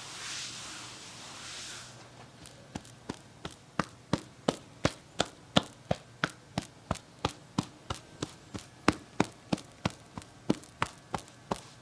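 Massage tapping: a steady run of sharp percussive taps, about three a second, starting about two seconds in after a soft hiss of rubbing.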